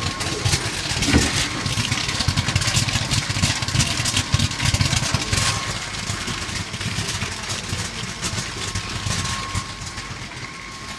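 Chilli pepper colour sorting machine running: a steady mechanical hum with a thin steady tone over it and a rapid crackle of fine clicks. The sound drops somewhat about halfway through.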